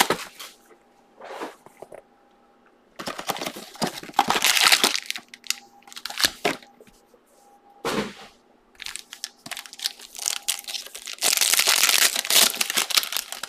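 Foil-wrapped Select Draft Picks football card packs being handled and torn open: bursts of crinkling and tearing wrapper, the longest and loudest near the end. A faint steady hum runs underneath.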